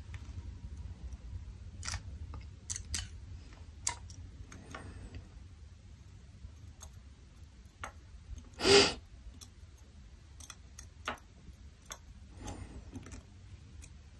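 Small scattered clicks and taps of metal tweezers against a plastic parts tray and the thermostat housing while a tiny part is picked up, with one louder knock about nine seconds in, over a low steady hum.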